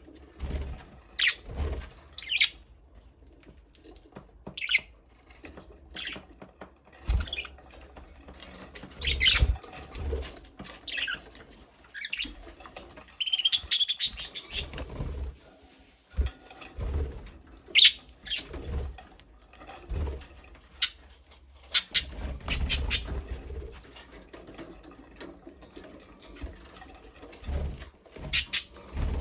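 Budgerigars chirping in short, scattered calls, with a busier run of rapid chirps about halfway through. Low thumps and rustles come between the chirps.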